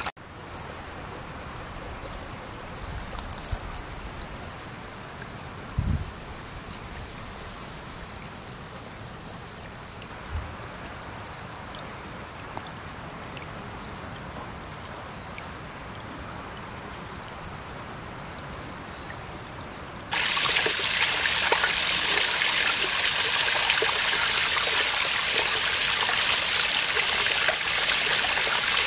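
Spring water trickling quietly through a muddy seep, with a few low bumps. About two-thirds of the way in it gives way to a much louder, steady splashing of spring water pouring from a metal spout into a stone-lined pool.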